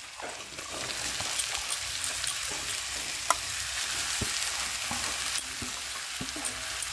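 Steady sizzle as boiled banana flower and potato are tipped into hot fried spice paste in a kadai, with a few light clicks and scrapes of the steel plate and spatula against the pan.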